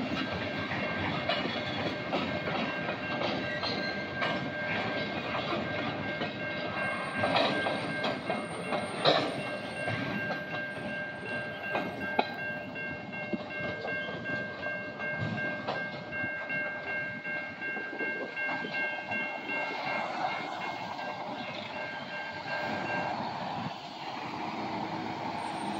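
Freight cars rolling over a street-level grade crossing, wheels clicking over the rail joints, with a loud clank about nine seconds in. A steady high-pitched tone sounds over the rolling and stops shortly before the end.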